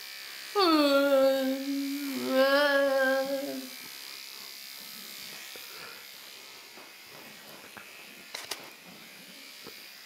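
A woman's voice sung through a buzzing electric toothbrush held to her mouth: two held notes with a warbling, buzzy tone, the first sliding down in pitch. The toothbrush then buzzes on faintly, with a couple of short clicks about eight seconds in.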